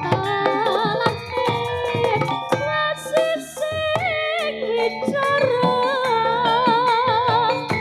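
Live campursari band music for a jaranan dance: a high, wavering melody with strong vibrato over a steady run of drum strikes.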